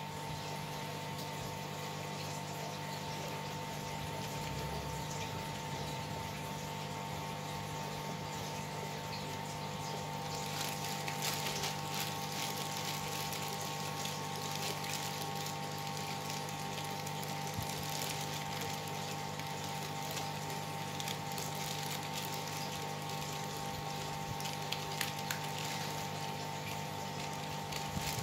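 Aquarium filter pump running with a steady hum, over the constant splash and trickle of water into the tank; the water noise grows louder about ten seconds in.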